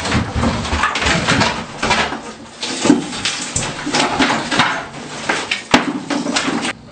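Fiberglass tub-shower unit being torn out in sections: rigid fiberglass panels scraping and clattering against each other and the framing, with many knocks and sharp cracks and one especially sharp snap near the end.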